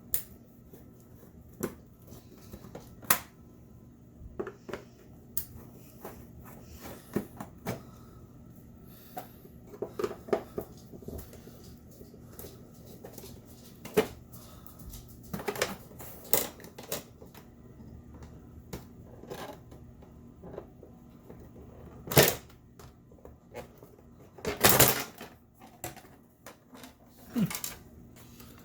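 Scattered clicks, taps and knocks of things being handled, with the loudest single knock about three quarters of the way through and a longer clatter a few seconds later, over a faint steady hum.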